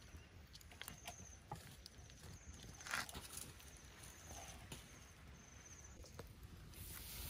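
Faint light clicks and taps of snail shells and small crabs being set down on a wire grill, with one louder clack about three seconds in.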